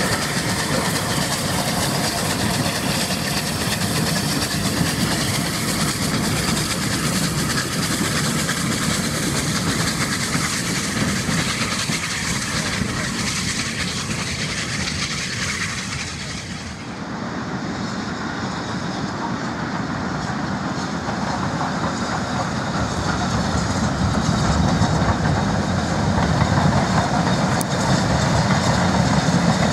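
Steam trains passing: a steam locomotive working past with its train of goods vans, then after a cut about halfway through another steam train passing, growing louder toward the end.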